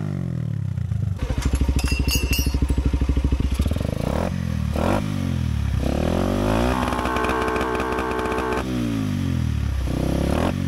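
Small motorcycle engine revved while standing. It drops back and runs unevenly for a couple of seconds, is blipped twice, then is revved up and held steady at high revs for about two seconds before falling back, with another blip near the end.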